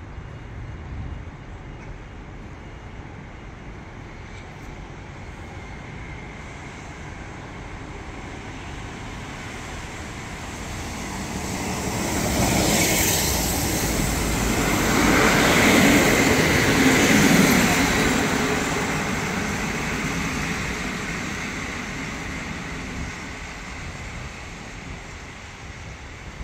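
Diesel railcar SA137-001 with a 120A trailer car pulling into the station platforms, the engine and wheels on the rails passing close by. The sound builds as it approaches, is loudest as it goes past about halfway through, then slowly fades as the train runs on down the platform.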